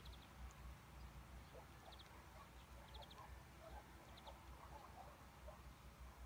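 Near silence: faint rural outdoor ambience. A short high chirp repeats about once a second, a few faint lower calls come and go in the middle, and a low rumble sits underneath.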